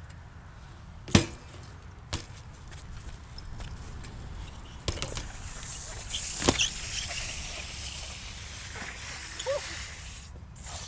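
BMX bike rolling on a concrete skatepark, its tyres making a steady low rumble, with several sharp knocks. The loudest come about a second in and about six and a half seconds in, the second as the bike lands a jump over a concrete box.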